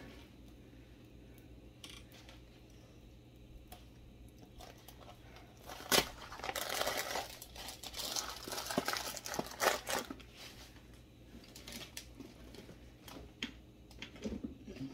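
Plastic bag crinkling and rustling as it is handled, starting with a sharp click about six seconds in and going on for about four seconds with more clicks, then dying down to a few faint rustles.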